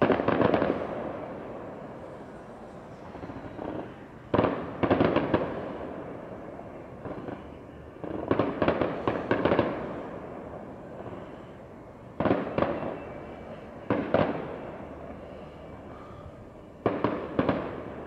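Display fireworks shells bursting in volleys every few seconds, each volley a quick string of sharp bangs followed by an echo that fades away.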